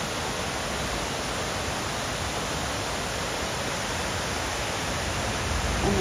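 Steady rush of water pouring down stepped rock cascades into a pond.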